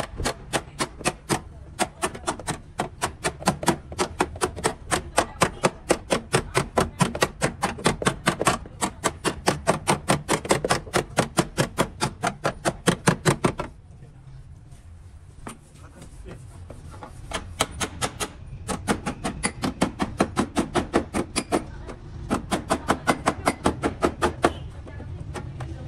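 Rapid, even hammer blows, about four a second, in two long runs with a pause of a few seconds about halfway through.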